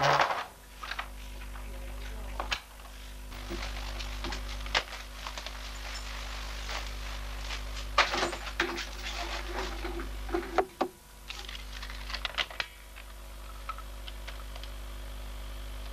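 Scattered clicks and knocks from a door lever handle being worked and a person moving about a small room, over a steady low electrical hum. The sharpest knock comes about eight seconds in, with a run of clicks a couple of seconds later.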